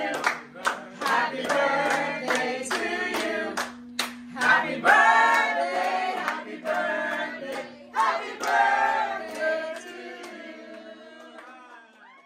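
A group of people singing together, with hand claps keeping time at about two a second. The singing fades out near the end.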